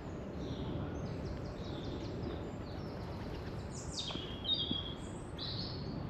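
Small songbirds calling over a steady low background rumble. First comes a quick run of repeated high notes, then a few sharper chirps, one of them sliding down in pitch.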